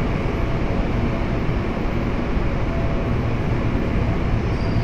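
GTX-A Series A000 electric multiple unit running slowly into the platform behind the platform screen doors and slowing toward a stop: a steady low rumble of wheels and running gear.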